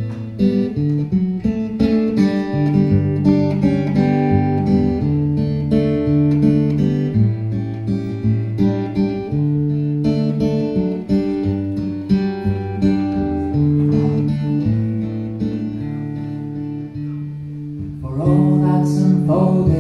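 Solo acoustic guitar playing an instrumental passage of picked and strummed chords with a moving bass line. A man's singing voice comes back in near the end.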